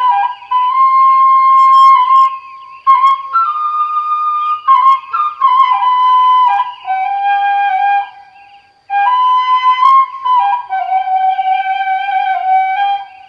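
Background music: a flute playing a slow melody of long held notes in phrases, pausing briefly twice.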